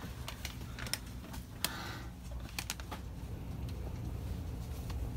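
Indoor shop room tone: a steady low hum with a handful of light, sharp clicks and taps in the first three seconds.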